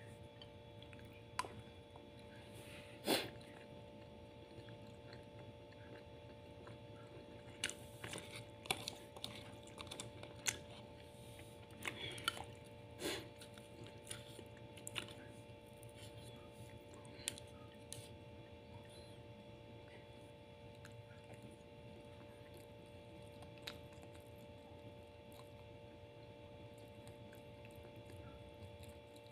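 Eating sounds: a plastic spoon clicking and scraping on a plate of rice, with chewing, in scattered short clicks that come thickest in the middle and thin out towards the end. A faint steady hum lies underneath.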